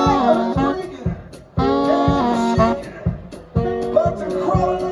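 Live swing band playing: a saxophone plays sustained, sliding phrases over a steady drum beat.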